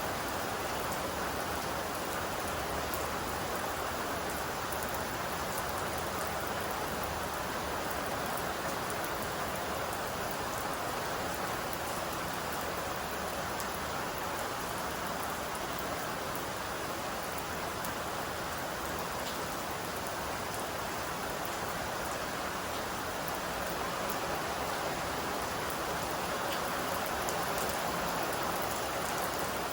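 Steady rain falling on surfaces, an even hiss with scattered drops ticking.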